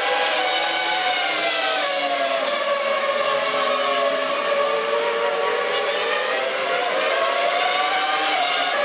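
Formula One V10 engines at high revs, the pitch gliding up and down continuously as the cars brake, shift and accelerate, with more than one engine note overlapping at times.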